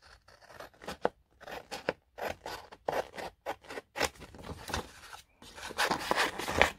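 Scissors snipping through paper to cut out a picture, in a run of short, irregular cuts that come faster and louder towards the end.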